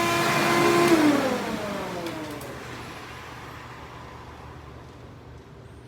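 1995 Hoover PowerDrive Supreme upright vacuum cleaner's motor running with a steady whine, then switched off about a second in, its pitch falling as it winds down and fades.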